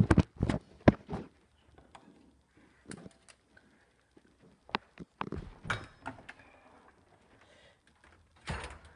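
Scattered knocks and clicks of things being handled, loudest in the first second and again near the end.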